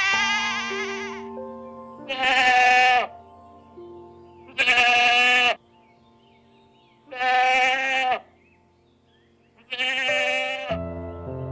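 Sheep bleating five times, each bleat about a second long, over background music with held notes.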